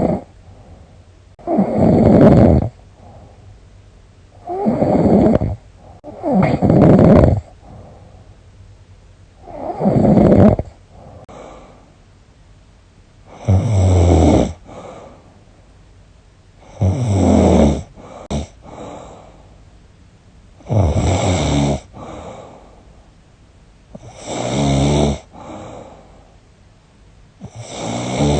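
A woman snoring loudly in her sleep, about eight rough snores spaced three to four seconds apart, the later ones with a low rattling flutter. It is snoring that she suspects is a sign of sleep apnea.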